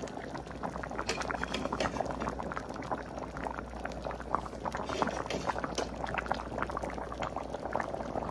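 Pot of thick fish stew at a rolling boil, the broth bubbling with a dense run of small pops, over a low steady hum.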